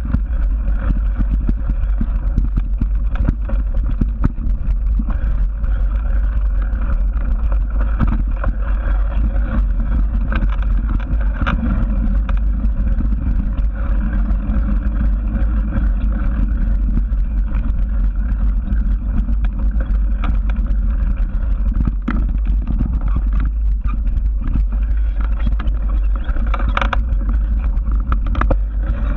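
Steady deep rumble of wind and motion on a moving action camera's microphone, with scattered small rattles and knocks.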